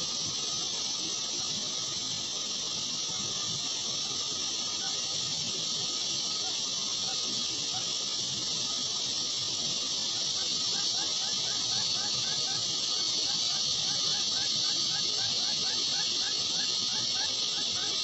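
A steady, high-pitched hiss, with a quick run of short repeated chirps that comes in about halfway through and keeps going.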